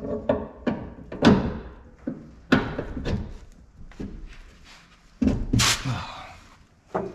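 Irregular metal knocks and thunks from hand-tool work on a travel trailer's leaf-spring suspension hanger and bolts, with loud hits a bit over a second in, about two and a half seconds in and just after five seconds in, and lighter taps between.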